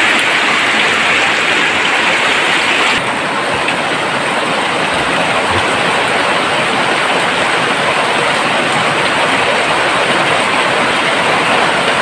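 Heavy rain pouring down steadily, a dense hiss. The highest part of the hiss drops slightly about three seconds in.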